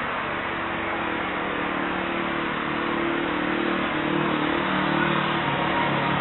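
Steady rushing noise with a low engine hum that slowly grows louder: an Airbus A321neo airliner approaching to land, heard from afar and mixed with road traffic.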